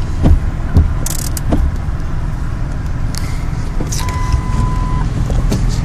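Steady low rumble inside a pickup truck's cab, with a few knocks and a brief rattle in the first two seconds, then a single beep about a second long near four seconds in.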